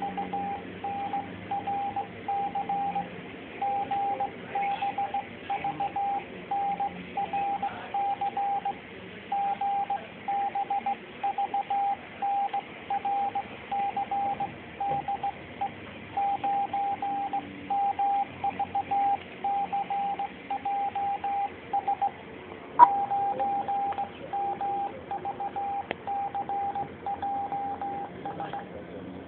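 Morse code (CW) sent on an amateur radio transceiver: a steady high tone keyed on and off in short and long elements, with brief gaps between letters and words, over a low background hiss. A single sharp click stands out about three-quarters of the way through.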